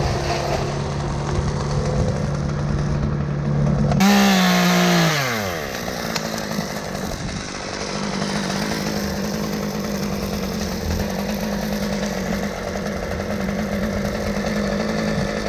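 Chainsaw engine running. About four seconds in it revs up sharply and then falls back down in pitch, and a steady engine drone carries on after that. The saw is an M-Tronic model that its owner says has been running badly and thinks needs a carburetor rebuild.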